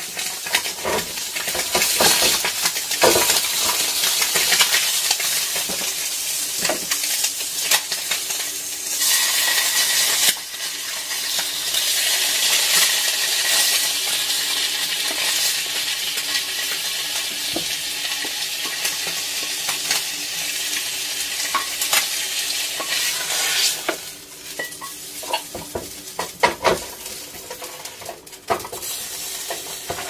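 Food sizzling as it fries in a pan, stirred with a utensil that clicks and scrapes against the pan. The sizzle is loudest through the middle and turns quieter for the last several seconds, leaving scattered clicks.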